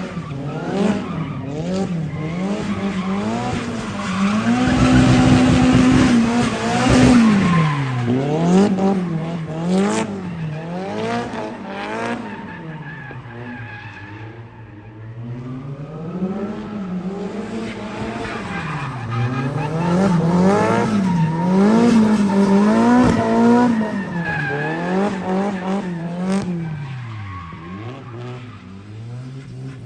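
Drift car's engine revving up and down in quick swings as the car slides, with tyres squealing. The revs hold at their highest pitch for a moment about five seconds in, ease off midway, then swing up and down again.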